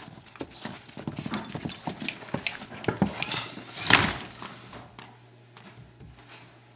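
Dog panting and whimpering among a run of clicks and scuffles. The loudest noise comes about four seconds in, then it goes quiet.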